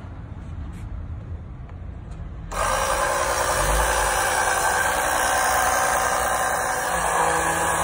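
Small electric fluid-extractor pump switched on about two and a half seconds in, then running with a steady buzz as it pumps power steering fluid through its tubes; faint handling noises before it starts.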